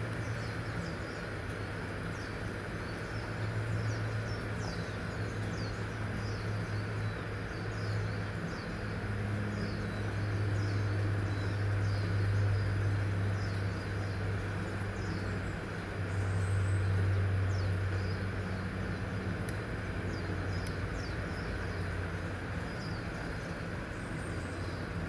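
A low, steady mechanical drone that swells about halfway through and again a few seconds later, with many short, high, falling chirps of small birds over it.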